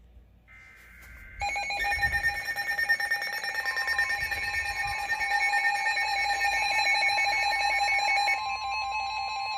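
Several NOAA weather radios sounding their alert alarms at once for a new severe thunderstorm warning: overlapping steady and rapidly pulsing electronic beeps starting about a second and a half in, joined a couple of seconds later by the steady 1050 Hz warning alert tone. One of the beeping alarms stops near the end.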